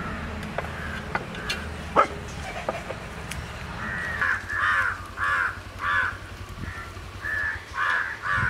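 A crow cawing repeatedly from about halfway through, in short calls roughly every half second. Before that there are a few light clicks and knocks as the chickens are handled on a metal tray, the sharpest about two seconds in.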